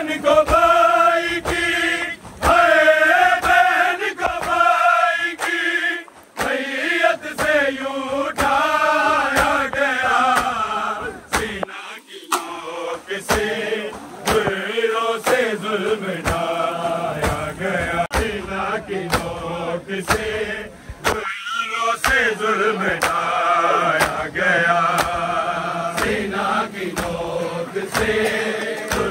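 A crowd of men chanting a noha together. Steady, sharp slaps of matam, hands beating on chests, keep time at a little faster than one beat a second.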